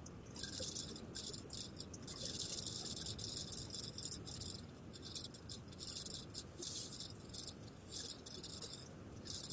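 Cabin rattle in a Skoda Kushaq while driving: irregular, stop-start bursts of high-pitched rattling over a steady low rumble.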